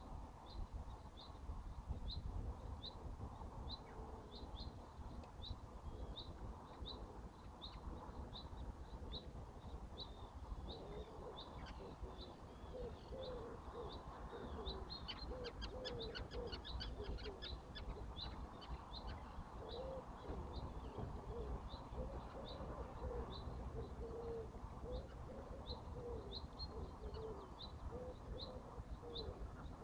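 Birds calling: a small bird repeats a short high chirp about twice a second, with a quick burst of faster, higher twittering near the middle. From about a third of the way in, low cooing calls come in groups, over a low steady rumble.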